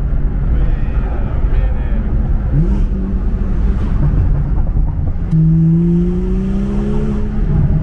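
BMW turbocharged straight-six engine running as the car drives, over steady road rumble. The engine note rises quickly once about two and a half seconds in. It then climbs again more slowly and strongly from about five seconds in as the car pulls.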